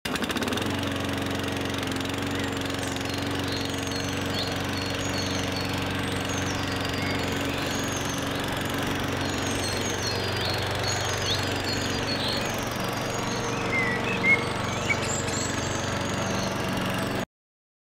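A steady low mechanical drone, like a running engine, with short bird chirps over it and a few louder calls about three-quarters of the way through. The whole sound cuts off suddenly near the end.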